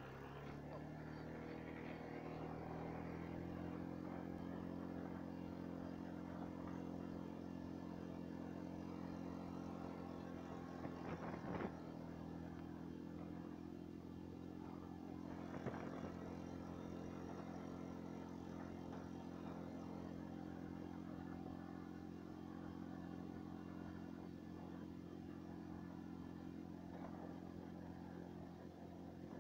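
Snowmobile engine running, rising in pitch over the first few seconds as the sled speeds up, then holding a steady drone at cruising speed. Two brief sharp knocks stand out partway through.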